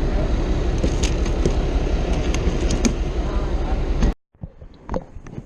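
A loud, steady low rumble with a few sharp knocks, cutting off abruptly about four seconds in; after that only quieter small clicks and taps.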